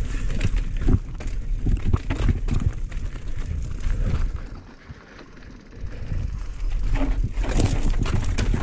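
Specialized Stumpjumper Evo mountain bike rolling down a rocky trail: tyres crunching over loose stones, with the bike rattling and knocking as it hits rocks over a low rumble. It goes quieter for about a second and a half around the middle, then the rattle and knocks pick up again.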